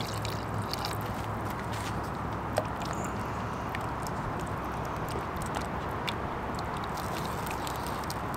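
Campfire crackling under a pot of simmering chili while a wooden spoon stirs the thick chili, with scattered small clicks and one sharper click about two and a half seconds in.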